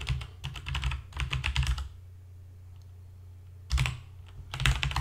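Keystrokes on a computer keyboard: a run of quick typing, a pause of nearly two seconds, then more typing.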